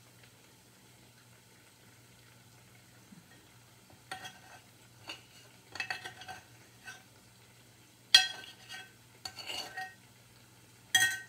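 A metal utensil scraping and clinking against a glass mixing bowl in irregular strokes, each with a short ringing tone. The loudest strikes come about eight seconds in and just before the end. The first few seconds hold only a faint steady hum.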